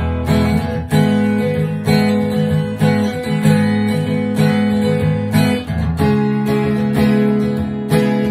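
Acoustic guitar strummed in a steady rhythm, with the chord changing about six seconds in.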